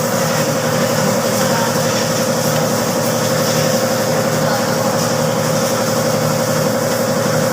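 Steady drone of an idling engine, an even running hum that holds unchanged throughout.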